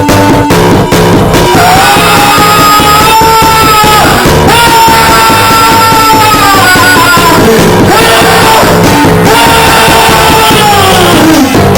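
Very loud rock-style music with a steady beat and a long held lead line, sung or played, that wavers and slides down in pitch near the end.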